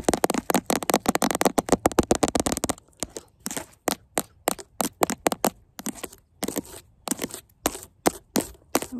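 Long fingernails tapping on a hard round white object held close to the microphone: a fast, dense flurry of clicks for about three seconds, then slower, separate taps a few times a second.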